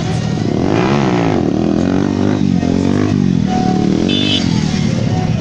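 Motorcycle engine revved up and down several times, its pitch rising and falling in repeated arcs over a steady engine drone.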